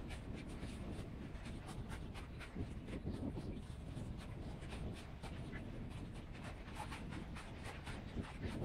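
Wind rumbling on the microphone over choppy water lapping close by, with many irregular small clicks and ticks.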